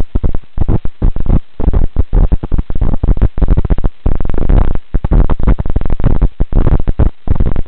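Loud, choppy low rumbling on the microphone inside a moving vehicle, cutting in and out several times a second and hitting full level.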